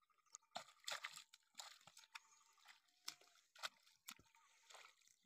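A bull's hooves splashing and squelching through a shallow muddy puddle: faint, irregular sloshing steps about every half second.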